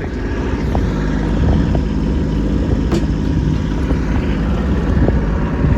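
Kubota B2601 compact tractor's three-cylinder diesel engine running steadily under load while it pushes snow, getting louder at the start.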